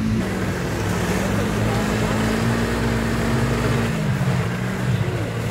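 Snowmobile engine running steadily under way, heard from the rider's seat over a hiss of wind and snow; the engine note drops a little about four seconds in.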